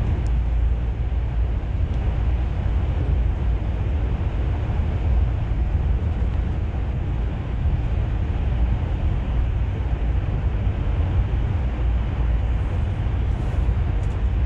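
Steady low engine and road rumble of a bus on the move, even throughout with no sharp events.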